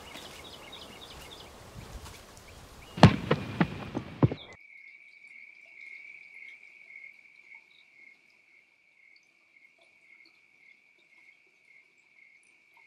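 Footsteps crunching on dry leaves and rock, with a few louder steps about three seconds in. Then an abrupt cut to a night insect's steady, high trill with a faint regular pulse.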